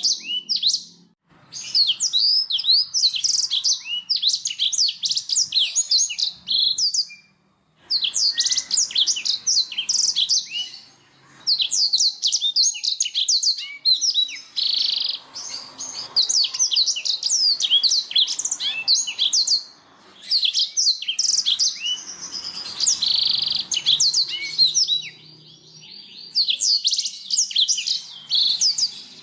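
Domestic canary singing: long phrases of rapid, high chirps and trills, each running several seconds and broken by brief pauses.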